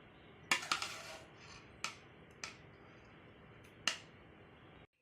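Metal serving spoon clinking and scraping against the pan and bowl as curry is ladled out: a short burst of clatter about half a second in, then three single clinks spaced a second or so apart.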